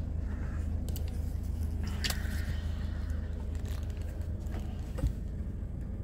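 Diesel air heater running with a steady low hum, now working again after its fuel pump and fuel filter were replaced. A few light knocks and rustles from the phone being handled, the sharpest a click near five seconds in.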